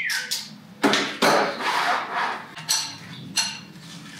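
About four sharp metallic knocks and clicks of a torque wrench and socket on a Ford 302 V8, as the wrench is fitted to the camshaft gear bolt and pulled to torque. The last two ring on briefly.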